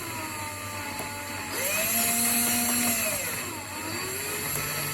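Power drill driving in the tightening screw of a washing machine door seal's retaining band, its motor speeding up about a second and a half in and slowing again near the end.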